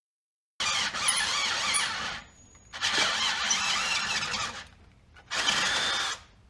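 A power drill boring out a steel track bar bracket to a 5/8-inch hole, run in three bursts. The bit cutting the metal gives a loud, high, wavering whine.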